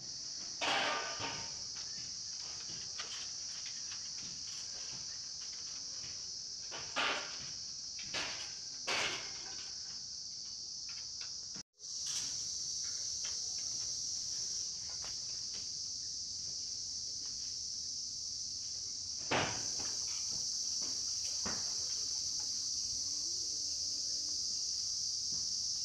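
Steady high-pitched chorus of insects, with a few short sharp knocks scattered through it. The sound cuts out for a moment about halfway.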